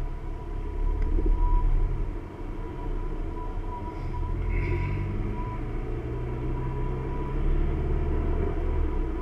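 A car driving slowly in traffic, heard from inside the car: a steady low engine hum and road rumble, with a faint steady high whine.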